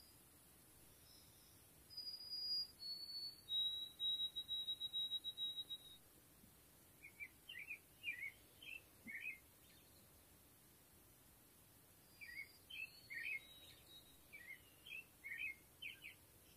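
Faint birdsong: clear, long, high whistled notes stepping down in pitch, the last one a fast run of repeated notes on one pitch, followed by scattered groups of short chirps.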